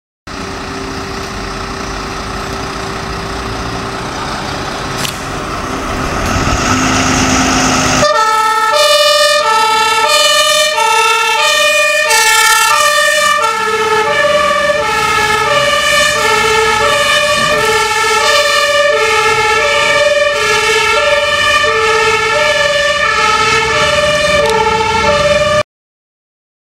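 Fire engine (tankautospuit) on a priority run. For about eight seconds its engine runs and builds up; then its two-tone siren comes on, loud, alternating high and low about once a second. The sound cuts off abruptly near the end.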